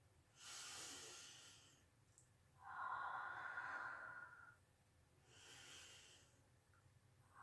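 A person taking slow, deep breaths, three faint breaths in and out, the middle one the loudest.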